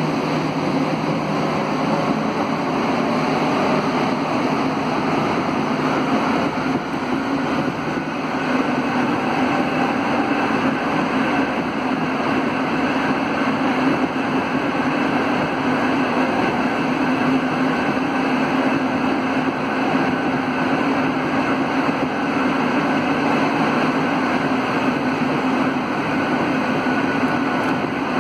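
Alstom NS 74 rubber-tyred metro train running steadily at speed through a tunnel, with an even rolling roar and a faint high whine from about eight seconds in.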